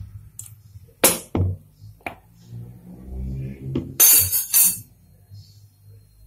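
Kitchen clatter: a few sharp clinks and knocks of items against a metal pot, with a short burst of rattling clinks about four seconds in.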